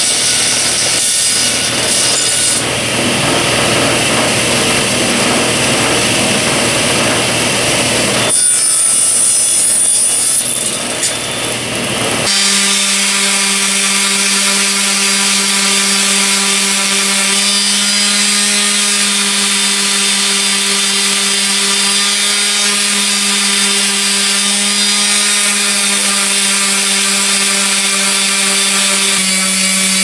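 A table saw cutting small pieces of wood, a dense rushing noise. About twelve seconds in it gives way to a handheld random orbit sander running with a steady hum while sanding a small wooden block.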